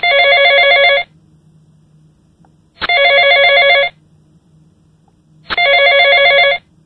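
Telephone ringing: three rings of about a second each, each a fast trilling tone, with short pauses between them.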